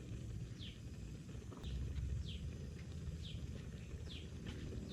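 A bird repeating a short, high call that slides downward, about once or twice a second, over a steady low rumble.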